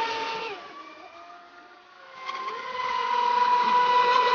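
Brushless electric motor of a ProBoat SonicWake RC boat whining at speed. The whine drops off and fades about half a second in, then winds back up about two seconds in and holds a steady high pitch.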